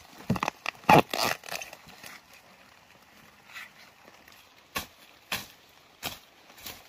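A young bamboo shoot snapped off by hand: a quick run of sharp cracks and rustles in the first second and a half, the loudest about a second in. After that come scattered single crunches of boots stepping through dry leaves and undergrowth.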